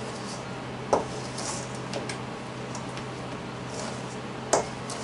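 Hands squeezing and working soft biscuit dough in a stainless steel mixing bowl: quiet squishing and swishing, with two sharp knocks, about a second in and near the end, over a steady low hum.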